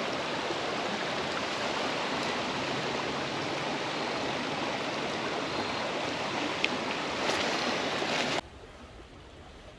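Creek water running steadily over a rocky bed, a constant rushing hiss with a couple of faint clicks near the end. The sound cuts off abruptly about eight seconds in, leaving only a quiet background.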